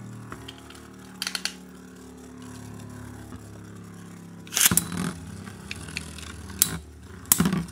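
Metal-wheel Beyblade tops spinning in a plastic stadium with a steady whir. About four and a half seconds in there is a sharp burst of clicks and clatter as the second top is launched in, followed by a few lighter clacks as the tops knock together.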